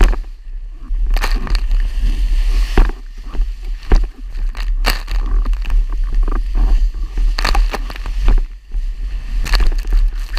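Wind buffeting the microphone of a rig-mounted action camera on a planing windsurf board, a constant low rumble, with water rushing and spraying under the board and irregular sharp slaps as it hits chop.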